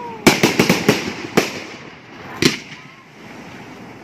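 130-shot fireworks cake firing: a rapid run of about seven sharp bangs in the first second, then two more single shots about a second apart.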